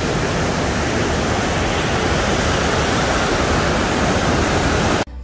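Linville Falls waterfall, a steady, even rush of falling water that cuts off abruptly near the end.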